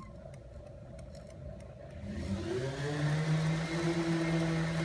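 Electric sewing machine motor running the bobbin winder, starting about two seconds in: a hum that rises in pitch as the foot pedal is pressed, then holds steady as the bobbin winds.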